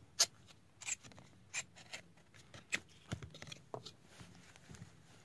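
Handling of a CD album's packaging: the contents sliding out of a tight cardboard slipcase, and a plastic CD case and booklet being set down, giving a series of light scrapes and clicks.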